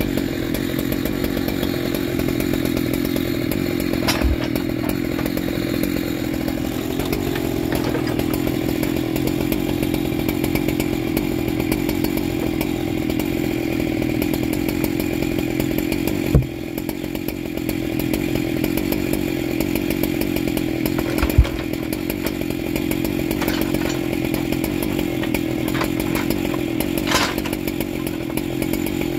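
Husqvarna 3120XP chainsaw's big two-stroke engine idling steadily, with three brief knocks along the way.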